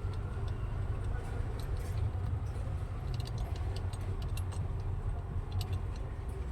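Light clicks and taps of small hard parts being handled, over a steady low rumble.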